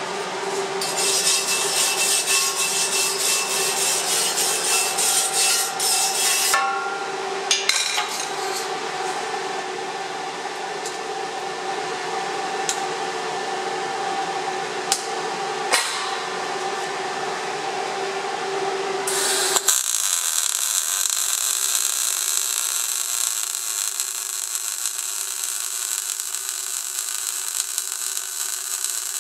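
A few sharp metallic clinks over a steady hum. About two-thirds of the way in, a MAG welding arc strikes and runs as an even crackling sizzle while a horizontal-position bead is laid on thin steel plate.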